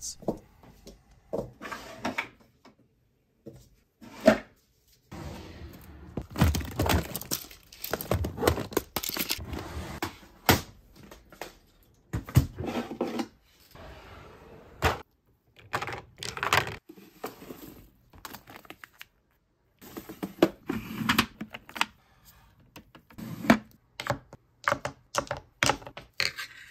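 Close-up handling noises of nail supplies: a drawer sliding open and small gel polish bottles clicking and knocking as they are picked out and set down in a cardboard tray, with rustles in between. The clicks and knocks come in irregular clusters broken by a few short silent gaps.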